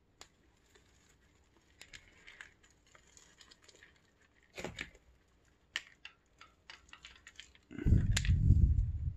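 Dry sphagnum moss and orchid leaves rustling and scraping against a bark-covered pot as the root ball is worked loose by hand, with scattered small clicks. Near the end a loud, low rumbling handling noise lasts about a second as the moss root ball comes out of the pot.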